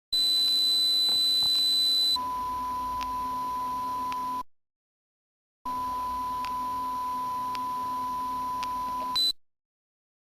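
Electronic pure sine tones for tinnitus masking, played in turns. A steady high whistle-like tone sounds for about two seconds, then switches straight to a quieter tone two octaves lower. A gap of about a second follows, then the lower tone again for about three and a half seconds, a brief blip of the high tone, and silence.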